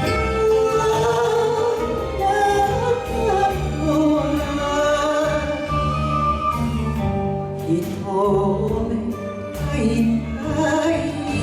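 Enka song performed karaoke-style: a woman sings the melody over a recorded backing track with a steady bass line.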